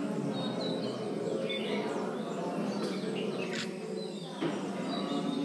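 Low murmur of many voices in a hard-walled hall, with bird chirps over it and a brief clink of metal on a bowl a little past the middle.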